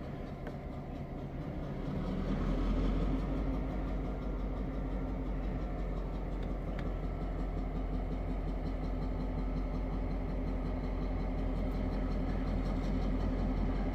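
F3A diesel locomotive's EMD 567 two-stroke engine throttling up about two seconds in, then running steadily as the locomotive pulls ahead slowly.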